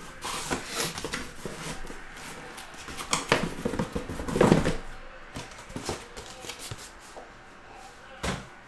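Cardboard shipping case and shrink-wrapped trading-card boxes being handled: scuffing, rustling and light knocks, busiest around three to four and a half seconds in, with one sharp knock near the end.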